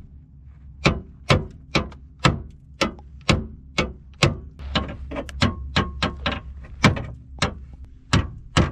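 Hammer blows on metal under the front of a car, a steady run of sharp strikes about two a second.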